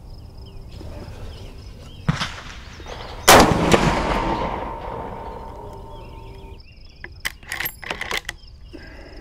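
A single shot from a Marlin 336 lever-action rifle in .30-30 Winchester, firing a 170 grain load, about three seconds in, with a long echoing tail that fades over a few seconds. A few sharp clicks follow near the end.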